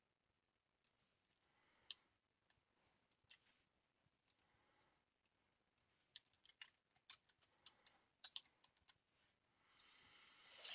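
Faint clicking from a computer mouse and keyboard: a few scattered single clicks, then a quick run of about a dozen between about six and nine seconds in. A short hiss-like swell near the end.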